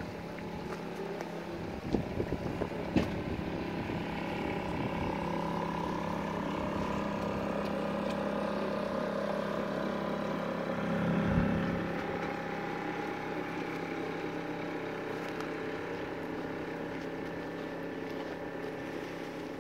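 Small sailing yacht's auxiliary engine running as the boat motors past with its sails down: a steady drone that swells to its loudest a little past halfway through, then fades as the boat moves away. Wind buffets the microphone throughout, and there are a few sharp knocks about two to three seconds in.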